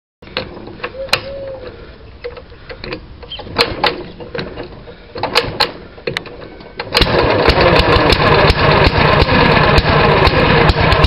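A restored J.A.P. Model 5 single-cylinder engine being pull-started for its first run after an overhaul. Scattered clicks and knocks come first as the starter rope is worked, then about seven seconds in the engine catches and runs loudly with rapid, even firing.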